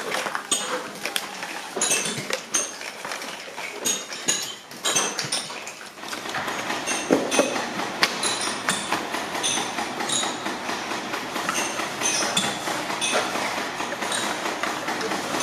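Cardboard firework tubes knocking and clattering against each other as they are handled and packed into rows by hand: a busy, irregular run of light taps and clicks. A steadier background noise comes up about six seconds in.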